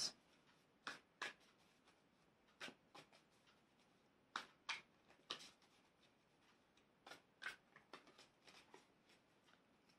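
Tarot cards being shuffled by hand: faint, irregular soft card slaps and rustles, about a dozen short sounds spread through the stretch.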